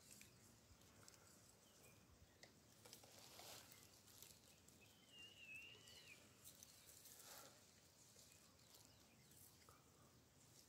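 Near silence: faint outdoor ambience, with a few soft ticks and one brief, faint wavering whistle about five seconds in.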